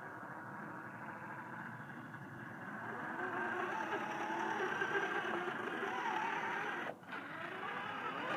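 Radio-controlled 4x4 crawler's motor and drivetrain whirring under throttle as its tyres churn through sticky mud, the pitch wavering with the throttle. It gets louder from about three seconds in and drops out briefly near the end.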